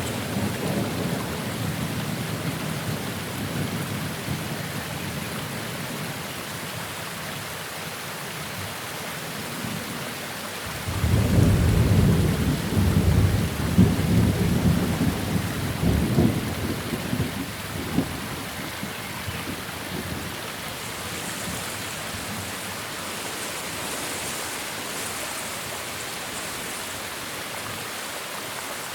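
Thunderstorm with steady rain. A low rumble of thunder fades away over the first few seconds, then a louder peal breaks out suddenly about a third of the way in and rolls on for several seconds before dying away, with the rain hissing on underneath.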